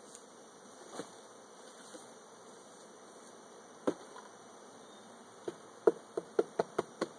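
Honey bee swarm buzzing steadily while a cardboard box held over a hive is knocked to shake the bees out: a single knock a second in, a louder one near the middle, then a quick run of about seven sharp knocks, about four a second, near the end.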